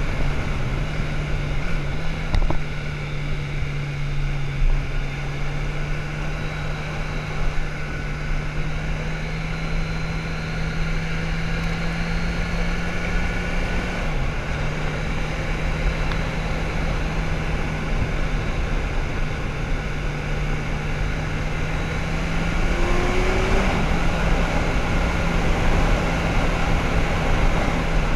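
Motorcycle engine running at a steady cruise under rushing wind noise. The engine note dips briefly about halfway and gets louder a few seconds before the end.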